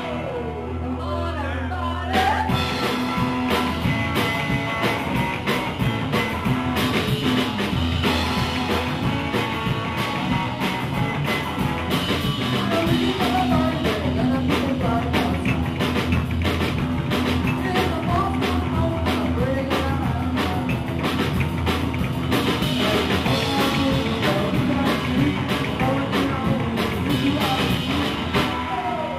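Live rock-and-roll band playing: drum kit, electric guitar and upright bass, with a singer's voice over a steady driving beat.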